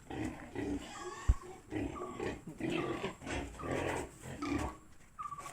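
Pigs grunting in short repeated calls, some with brief higher squeaks.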